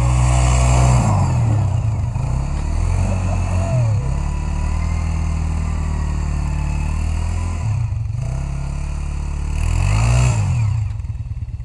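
Bombardier Rally 200 ATV engine revving up and down repeatedly as the quad spins through snow, loudest about a second in and again near ten seconds, then dying away near the end.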